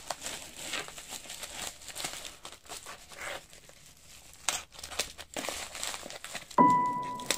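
Plastic courier mailer bag crinkling and tearing in irregular rustles as a utility knife slits it open. A steady tone comes in near the end.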